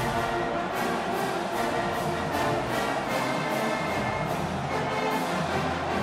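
Marching band playing: massed brass over a steady drum beat.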